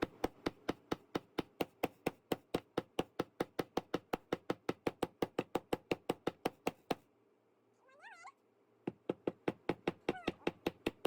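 Small hammer tapping nails into a wooden toy boat kit: quick, even strikes about four or five a second. The strikes stop for about two seconds, then resume. A short, wavering, high call sounds once during the pause and once more shortly after the tapping resumes.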